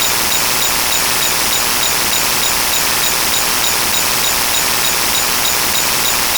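Steady loud rushing noise, like a hiss of static, with faint high pips repeating about four times a second.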